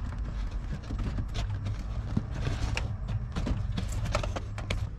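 Irregular small clicks and scratches of a wire being pushed by hand behind the edge of a van's fabric headliner, with a low steady hum underneath.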